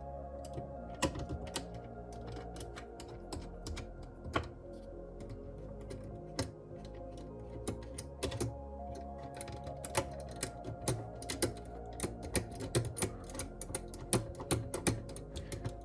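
Light, irregular clicks and taps of small computer parts being handled and set in place, several a second and busier in the second half, over steady background music.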